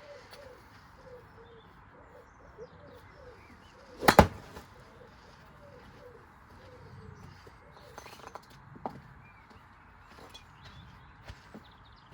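One loud, sharp impact about four seconds in, a thrown object hitting the old washing machine, followed by a couple of faint knocks later on. Faint repeated bird calls sound behind it.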